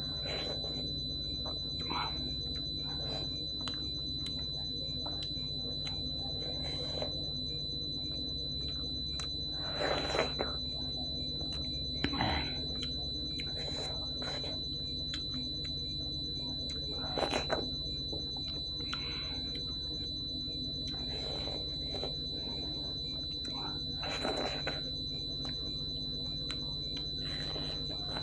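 A person eating dhido and chicken curry by hand, with a few short, wet chewing and mouth sounds spaced several seconds apart. Under them a steady high-pitched electronic whine and a low hum run without a break.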